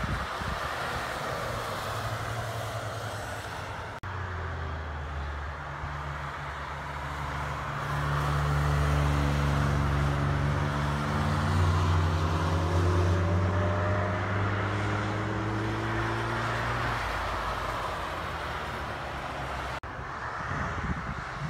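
Road cars driving past one after another at speed on a wet track. Their engine notes rise and fall as each car passes, over a steady hiss of tyres on wet asphalt. The sound cuts off abruptly at about four seconds and again near the end, where one clip jumps to the next.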